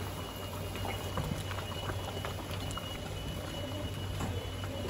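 Thick fish curry bubbling at a steady boil in a large aluminium pot, with many small pops of bursting bubbles.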